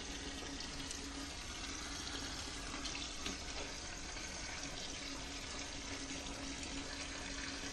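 Hot pasta cooking water pouring out of a pot through its perforated strainer lid into the sink: a steady rushing splash, with a faint steady hum underneath.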